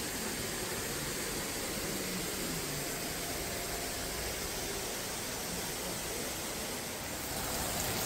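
Steady hissing background noise with no distinct events, a little louder near the end.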